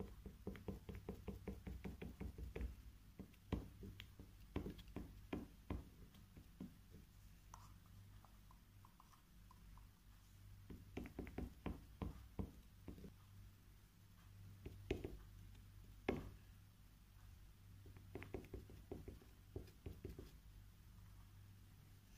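Light, rapid tapping of a pencil's flat end dabbing acrylic paint dots onto canvas paper, in quick runs of about five taps a second with short pauses between runs.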